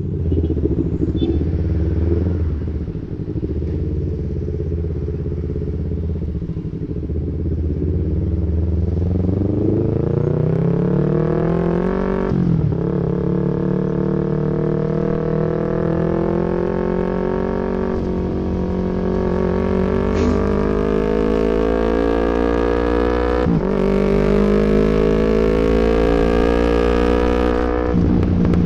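Yamaha MT-25 parallel-twin engine running low and steady at first, then pulling away and accelerating up through the gears. The pitch rises in runs, with upshifts about 12 and 23 seconds in and another near the end.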